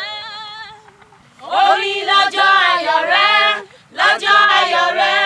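A woman's lead voice singing a Yoruba birthday praise song into a microphone, with other singers' voices joining. A wavering held note opens it, then after a short pause come two loud sung phrases with a brief break between them.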